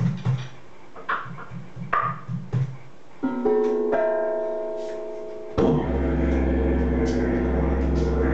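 Music: hand-drum strokes for about three seconds, then a chord that rings out and fades. At about five and a half seconds a low, steady didgeridoo drone starts and holds.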